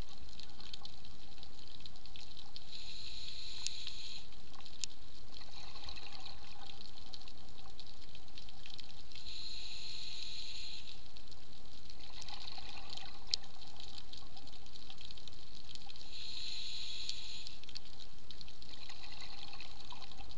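Scuba diver breathing through a regulator underwater: a breath about every six or seven seconds, each an inhale hiss followed by the bubbling of exhaled air, over the steady hum of the water.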